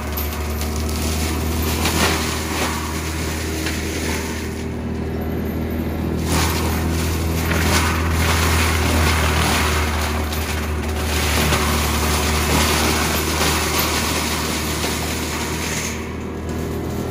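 Cat 299D3 compact track loader's diesel engine running at high throttle, driving a spinning CIMAF forestry mulcher drum, as a steady loud drone with a hiss and scattered crackles of brush being shredded. The hiss eases briefly a few seconds in and again near the end.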